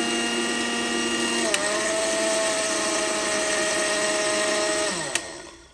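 Zunvolt mixer grinder's motor running steadily while grinding chana dal into fine besan flour in its steel jar. About a second and a half in, a click as the speed knob is turned, and the motor's note changes. Near the end, another click, and the motor winds down to a stop as it is switched off.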